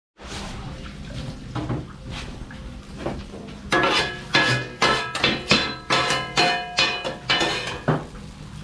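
Kotthu roti being chopped on a flat metal griddle: two metal kotthu blades strike the plate in a fast, uneven rhythm, each clang ringing. Soft clatter at first, then loud strikes about three to four a second from a little before halfway.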